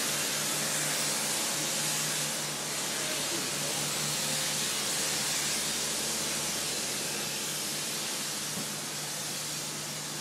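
Steady hiss with a constant low hum beneath it, heard on a city street.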